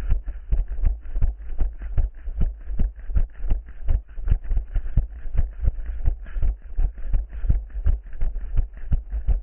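Running footfalls, an even beat of about three thuds a second, over a steady low rumble.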